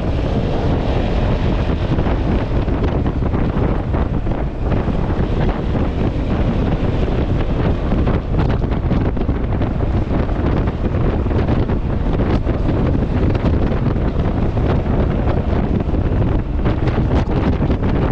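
Heavy wind buffeting the microphone on a moving Yamaha XMAX scooter, with the scooter's engine and road noise running underneath.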